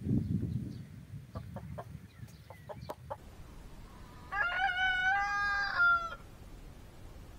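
A rooster crowing once, one crow of about two seconds held at a fairly steady pitch, starting about four seconds in. Before it there is a low rumble in the first second and a few sharp clicks.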